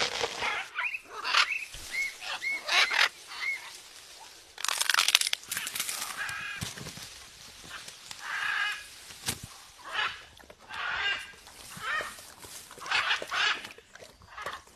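Parrot calling repeatedly in short squawks and chirps. A brief noisy burst comes about five seconds in.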